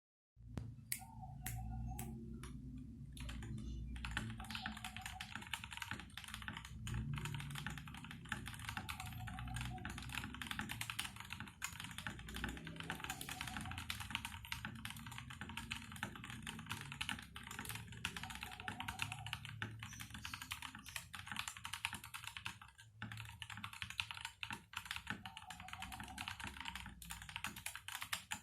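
Typing on a Koodo Gecko mechanical keyboard with stock Outemu Red linear switches and stabilizers hole-modded and lubed with Permatex. A few separate key presses, then fast continuous typing from about four seconds in.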